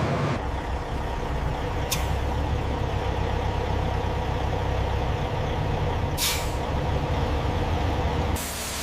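Heavy machinery running with a steady low rumble, broken by short hisses of released compressed air about two seconds in and again near six seconds. The sound changes abruptly near the end.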